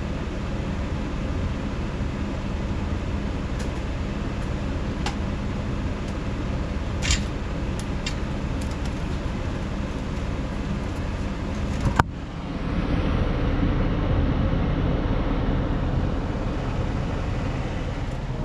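Bryant Legacy Line gas furnace's blower running steadily with a low hum and a few faint ticks, after the furnace has been switched off. A sharp click comes about twelve seconds in, after which the noise sounds fuller and lower.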